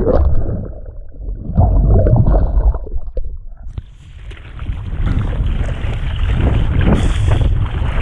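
Seawater splashing and rushing around a kiteboarder being dragged through the water by his kite. For the first few seconds it is muffled gurgling with the camera under water; from about four seconds in it becomes a steady loud rush of spray and water.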